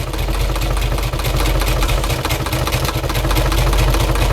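Electric sewing machine running steadily, its needle stitching with a fast, even clatter over a steady motor hum.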